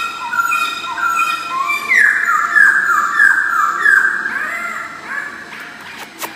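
Black-throated laughingthrush singing: a quick run of clear whistled notes stepping downward, then about four loud downward-slurred whistles in a row, trailing off into softer notes.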